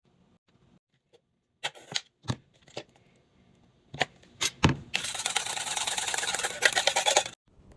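Kitchen handling noises during food preparation: a few separate sharp knocks, then about two and a half seconds of dense, rapid crackling that stops abruptly.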